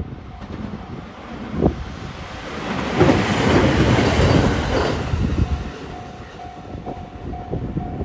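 A 521 series electric train passes close by at a level crossing, its wheels rumbling and clacking over the rail joints, loudest about three to five seconds in. A level crossing bell rings at a steady repeating pitch under it and is clear again near the end.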